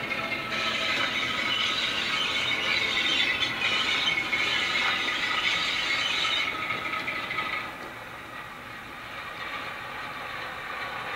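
Bachmann class 08 shunter model with a DCC sound decoder, running with its wagons: a high squeal sits over the diesel engine sound from about half a second in and fades out after about seven seconds, leaving the engine sound running.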